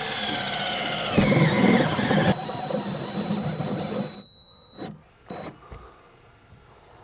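Cordless power drill boring a hole, its motor pitch dropping as the bit bites, loudest between about one and two seconds in. It then runs on more weakly with a thin high whine and stops about five seconds in as its battery dies.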